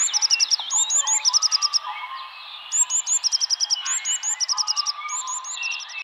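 Birdsong: one bird repeats a high phrase of a few quick hooked notes followed by a fast trill, over softer chirps and swooping calls from other birds. The high singing drops out about two seconds in and resumes about a second later.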